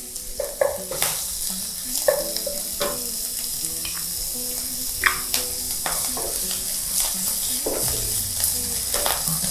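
Chopped shrimp and minced garlic sizzling in hot oil in a nonstick wok, with a wooden spatula scraping and pushing them around in irregular strokes as they are stir-fried. This is the shrimp being sautéed with its spice paste for a soup broth.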